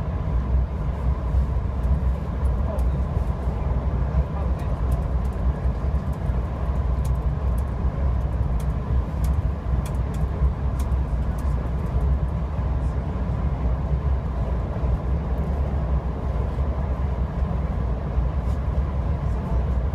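VIA Rail LRC passenger train running, heard from on board: a steady low rumble with a faint steady tone above it and light scattered ticks.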